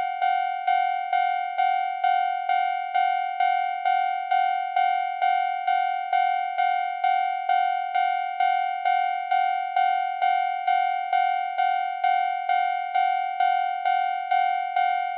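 Japanese railroad crossing warning bell ringing "kan kan" at a steady pace of about two strikes a second, each ringing tone running on into the next.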